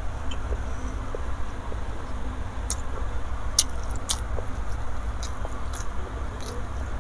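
Close-miked chewing of a mouthful of balado fish roe, with a few sharp mouth clicks scattered through the second half, over a steady low hum.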